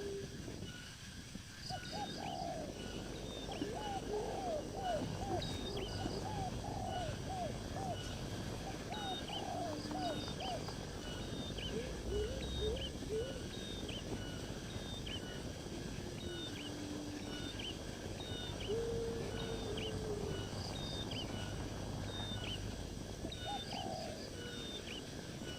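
Several birds calling at once over a steady outdoor background. Short high chirps repeat all through, runs of quick falling notes come in bursts, and there are a few longer low held notes.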